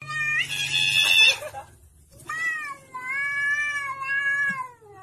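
A Persian-type cat meowing in two long, drawn-out calls. The first lasts about a second and a half and rises in pitch at its start. The second lasts about two and a half seconds and sags in pitch at the end.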